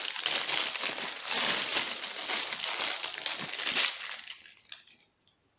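Plastic packaging crinkling and rustling as it is handled and unwrapped, dying away about four seconds in.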